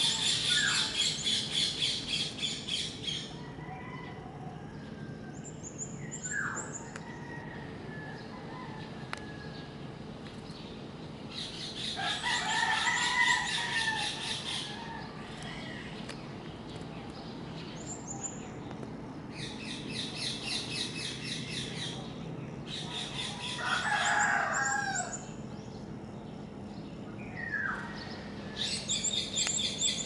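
Roosters crowing several times, with high, rapid chirring calls coming in bursts of about three seconds, four times. A faint steady hum lies underneath.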